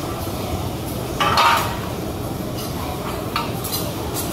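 Metal cookware and utensils clinking and scraping at a teppanyaki griddle over a steady hiss, with one louder ringing clink about a second in and a few short clicks later.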